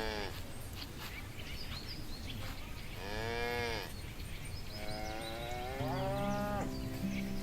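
Cattle mooing: the tail of one moo at the start, a second moo about three seconds in, and a third, longer moo that rises in pitch about five seconds in.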